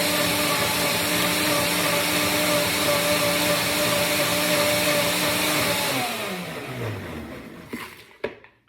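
Blender running steadily, blending water with pieces of grapefruit, lime and ginger. About six seconds in it is switched off and the motor winds down with a falling pitch, followed by a few short knocks.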